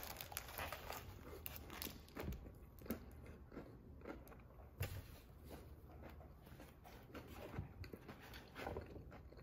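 A bite into a crispy fried chicken sandwich with bacon, then steady chewing, with many small irregular crunches.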